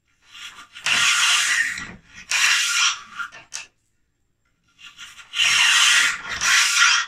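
A cleaning rod and bore brush scraping back and forth inside a rusty rifle barrel, in rasping strokes: two strokes, a pause of about two seconds, then two more.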